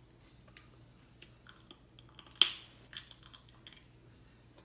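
Close-miked eating sounds of crab-leg meat being picked from the shell and chewed: scattered small clicks and mouth noises, with one much louder sharp click about two and a half seconds in and a quick run of small clicks just after.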